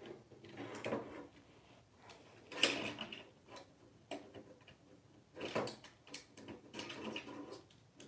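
African grey parrot pecking and biting at a toy whale in a wooden drawer: irregular light taps, clicks and knocks as his beak and the toy strike the drawer, with some scraping between them.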